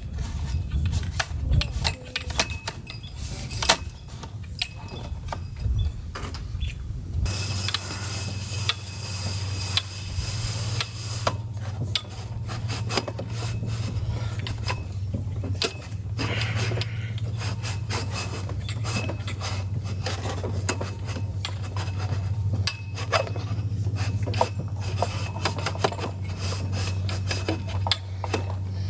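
Telescoping antenna mast being pushed up by hand, its sections rubbing and scraping as they slide, with many small clicks and knocks. A steady low hum runs underneath from about seven seconds in.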